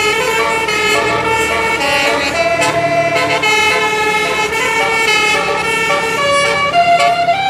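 A tour bus's 12-note basuri telolet air horn playing a tune: several horn tones sound together and step from note to note.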